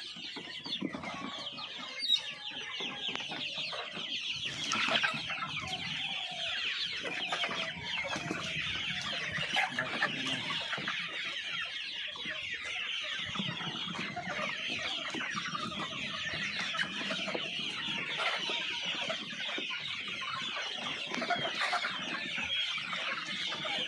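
A flock of chickens clucking and calling continuously, many birds at once, with a sharp knock about two seconds in.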